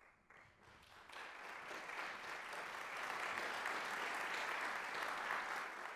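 Audience applauding: a few scattered claps at first, swelling within about two seconds into full, steady applause.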